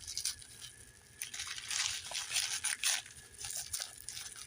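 Packaging tape being peeled and crinkled off 3D-printed parts, a run of rustles and crackles that is loudest in the middle.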